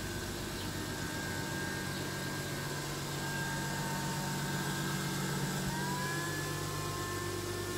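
2010 Mercedes C300 4Matic's 3.0 L V6, fitted with a custom exhaust with an X-pipe, idling steadily. A thin whine above the idle steps up slightly in pitch about three quarters of the way through.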